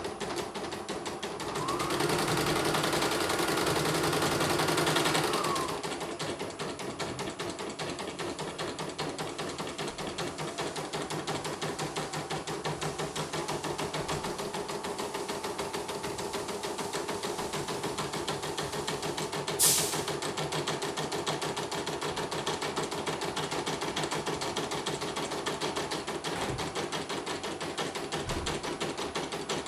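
Portable computerized embroidery machine stitching out a design, its needle clattering in a fast, steady rhythm. It runs louder for a few seconds near the start, and there is a single sharp click about twenty seconds in.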